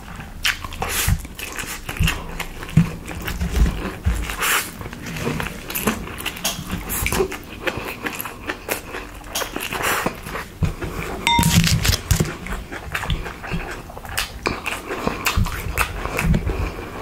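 Close-miked eating sounds: irregular wet mouth clicks and smacks of chewing food.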